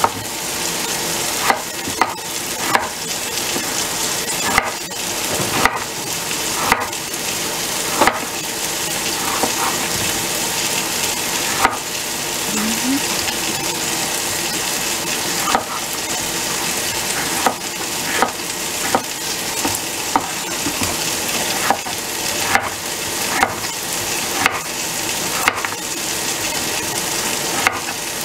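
Chef's knife cutting an English cucumber into strips on a wooden cutting board: a sharp tap of the blade on the board every second or two, with a pause of a few seconds near the middle. Under it runs a steady sizzle of chicken frying in a pan.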